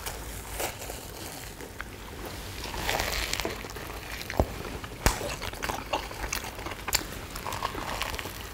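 People biting and chewing sugar-coated fried twisted doughnuts (kkwabaegi) close to the microphone: soft crunching of the fried crust, mouth sounds and small crackles, with a couple of sharper clicks about halfway through.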